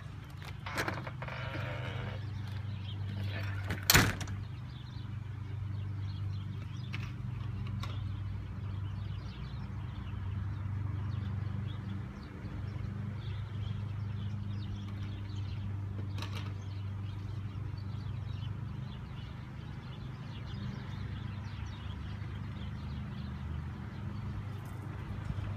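A sliding glass door is slid along its track and shut with a sharp knock about four seconds in, with a few lighter clicks later over a steady low hum.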